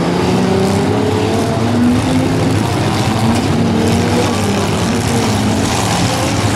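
Several demolition derby cars' engines running and revving together, their pitches rising and falling as they overlap.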